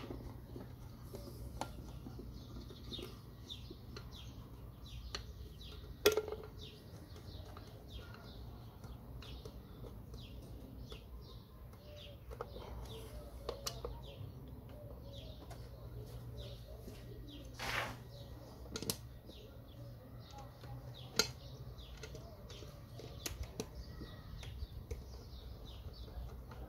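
Small birds chirping over and over, with a few sharp metallic clicks from a screwdriver working the screws of a car engine's top cover, the loudest about six seconds in, over a steady low rumble.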